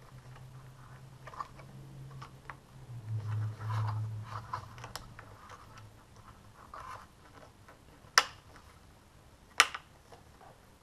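Hands handling and fitting plastic and foam model-glider tail parts: soft scuffs, rubbing and light taps. Two sharp clicks come near the end, about a second and a half apart.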